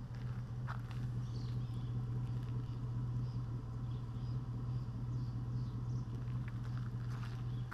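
2004 Chevy Silverado's 4.8 L V8 idling steadily through a single Borla XR-1 muffler, heard at the tailpipe as a low, even exhaust note.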